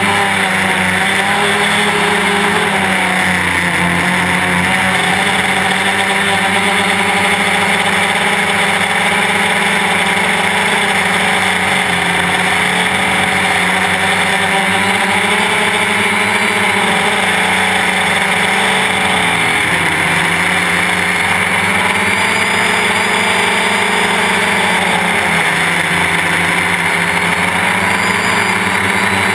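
Quadcopter's brushless electric motors and propellers running steadily in flight, heard close up from a camera on the frame. The whine rises and dips every few seconds as the motor speeds change.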